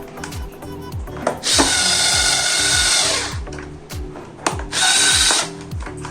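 A small power-tool motor, like an electric drill or screwdriver, runs with a whine in two bursts: a longer one about a second and a half in and a short one near the end. Background music with a repeating bass pattern plays underneath.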